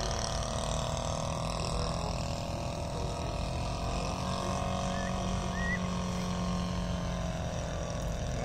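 Saito 84 three-cylinder four-stroke radial engine of a large radio-controlled Hawker Sea Fury model, turning a 25x12 propeller, running steadily in flight as the model passes.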